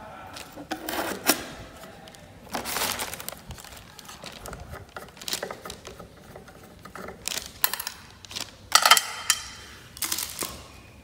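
Ceiling fan's metal mounting hardware and a screwdriver being handled: scattered light clicks and clinks with brief scraping rustles, the loudest about nine seconds in.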